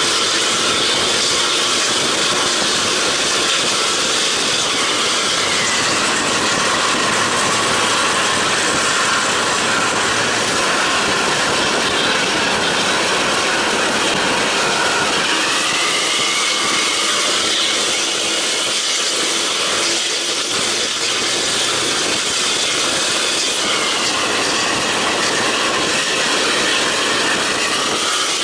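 Bus running at speed on the highway: a steady, loud engine and road rumble, with the engine note sliding in pitch a few times as it changes speed.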